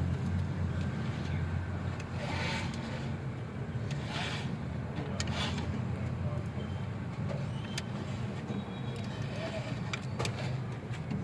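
Car engine idling steadily with a low hum, with a few short scraping or rustling sounds from work on the brake.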